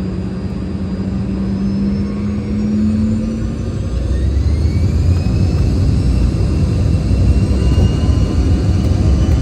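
The twin rear-mounted turbofans of a Bombardier CRJ200 spool up for takeoff, heard from inside the cabin. A steady hum gives way about four seconds in to several rising whines over a growing low rumble, and the whole sound gets louder.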